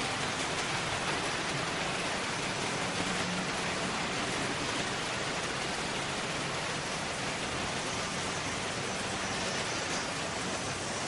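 Steady rushing hiss of HO-scale Märklin model train wheels rolling on metal track, easing off slightly as the freight train moves away.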